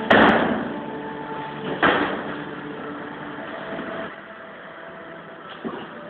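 Dull thuds of kickboxing blows landing on gloves and shin guards during sparring: a loud hit right at the start, another about two seconds in, and a lighter one near the end.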